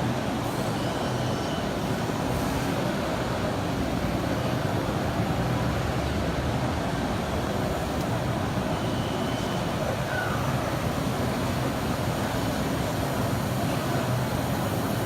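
Steady, dense background noise of a large exhibition hall, even in level throughout.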